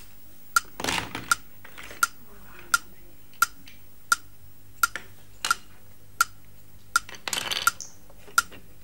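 Steady clock-like ticking, one sharp tick about every 0.7 seconds. Plastic building bricks clatter as they are rummaged and picked up, about a second in and again around seven seconds.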